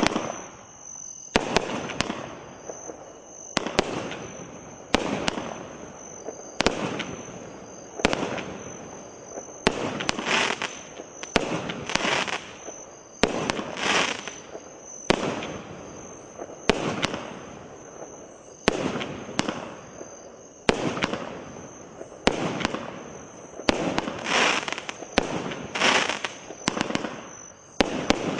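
Consumer fireworks cake firing about twenty shots one after another, roughly one a second and sometimes two in quick succession. Each shot is a sharp report followed by a fading, rustling tail of about a second.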